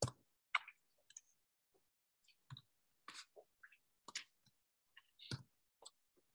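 Faint clicks of typing on a computer keyboard: about a dozen short, separate keystrokes at an uneven pace.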